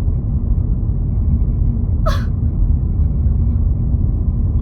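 Car running down the road, heard from inside the cabin as a steady low rumble of engine and road noise. A brief sharp sound cuts in about two seconds in.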